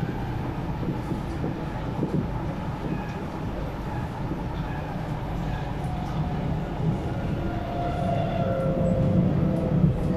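Interior running noise of an SMRT C751B metro train on elevated track: a steady rumble of wheels on rail and motors. A thin whine comes in during the last few seconds as the sound grows slightly louder.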